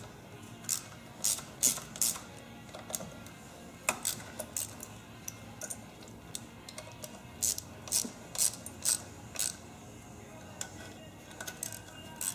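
Hand ratchet clicking in short strokes, a sharp click about every half second in spells, as the ignition coil mounting bolts on a Kohler engine are snugged down against a ten-thousandths gap gauge.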